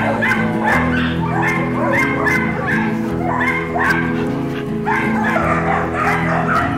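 Dogs barking and yipping over and over, about three barks a second, over acoustic folk music.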